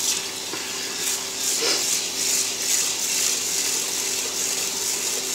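Kitchen faucet running into a rice cooker's inner pot of white rice, with a few swishes of water from about one to three seconds in as the rice is swirled and rinsed by hand.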